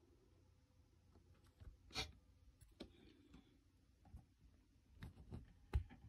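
Near silence in a small room, broken by a few faint scattered clicks and taps: a sharper click about two seconds in, several light ones later, and a soft low knock shortly before the end.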